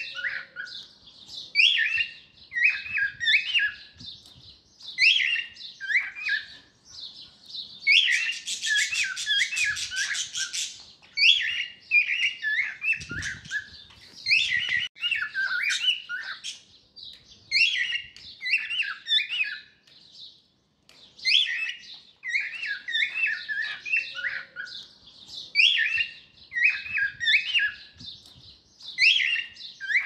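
Cockatiel singing and calling: bursts of short, sharp chirping whistles in repeated phrases with brief pauses between, and a harsher, noisier stretch lasting about three seconds around a third of the way in.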